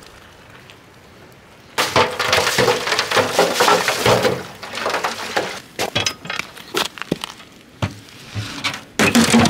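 Sap pouring from a bucket into the steaming pans of a barrel-stove maple-syrup evaporator: a loud splashing, crackling rush that starts about two seconds in and lasts a few seconds. Scattered knocks follow, then a loud clatter near the end as split wood is fed into the stove's firebox.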